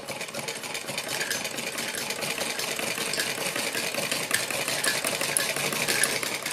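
Domestic sewing machine running steadily, stitching a straight seam through layered fabric with a rapid, even run of needle strokes.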